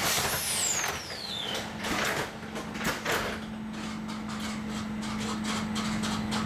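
Tram doors sliding shut with knocks about two and three seconds in, then a steady electrical hum from the tram. A high whistle falls in pitch near the start.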